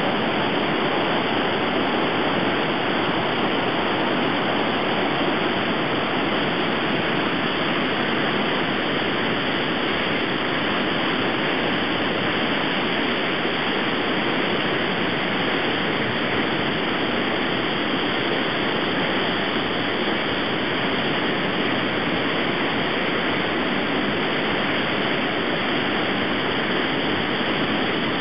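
Secchia river in flood: muddy floodwater rushing and churning over the concrete regulating weir of the flood expansion basins, a loud, steady rush of water with no let-up.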